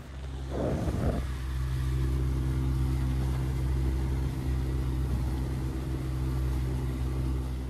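Davit winch motor running steadily as the dinghy is lowered into the water, with a brief louder rush as it starts, then cutting off at the end.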